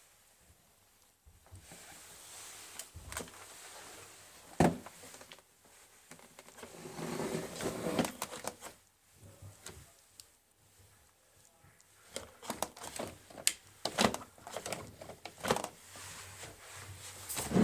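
Plastic parts of a Dyson vacuum cleaner being handled: scattered clicks and knocks with some rustling, thickest in the last few seconds. The motor is not running.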